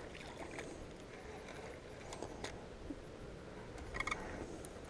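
Quiet outdoor background with a few scattered soft clicks and taps from handling a fishing rod, reel and line, including a short cluster of clicks about four seconds in.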